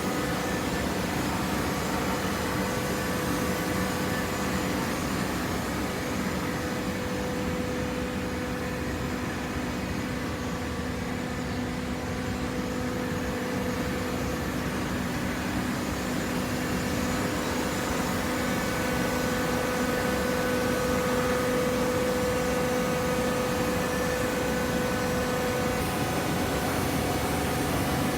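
Hydraulic baler's power unit running, a steady mechanical hum with a held whine. It grows a little louder in the second half.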